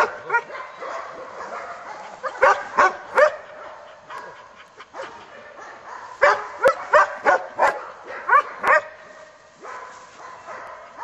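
German Shepherd puppy yipping in quick bursts, about four short high yips a couple of seconds in, then a run of about seven from about six seconds in. She is demand-yipping for food held above her.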